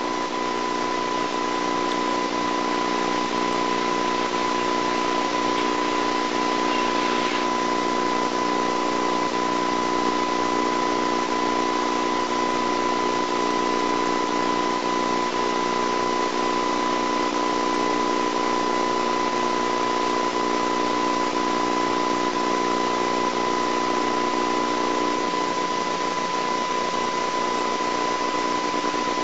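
Steady hiss with a constant high whine and a low electrical hum, unchanging throughout: the background noise of an old videotape transfer.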